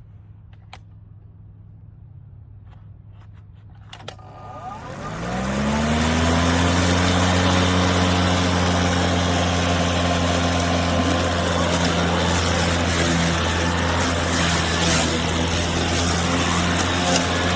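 Greenworks 40V cordless lawn mower starting: a click about four seconds in, then the electric motor and blade spin up with a rising whine and settle into a steady, loud running hum.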